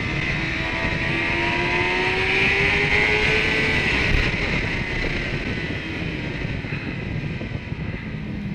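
Kawasaki ZX-10R inline-four engine accelerating on track, its pitch climbing steadily for the first four seconds or so, then easing off. Heavy wind rush on the on-bike microphone.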